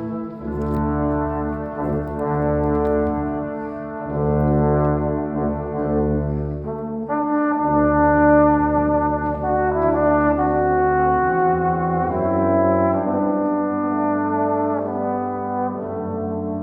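A brass quintet of trumpets, French horn, trombone and a low brass voice playing sustained chords that shift every second or two, with a new, higher chord entering about seven seconds in.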